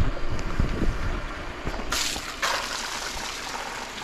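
Rainwater that had pooled on a caravan awning pouring off onto the ground as the awning is tipped. The rush of water starts suddenly about two seconds in, after a few low knocks from handling the awning.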